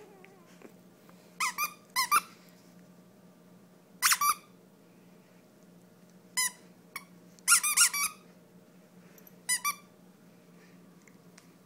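Squeaker in a plush dog toy squeaking in short bursts, several in quick pairs, as a German Shepherd puppy bites and tugs on the toy.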